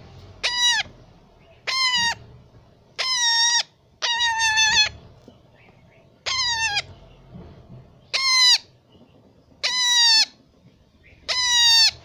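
Baby parrot calling: eight loud, harsh calls spaced a second or two apart, each dropping sharply in pitch at its start and then holding steady for about half a second.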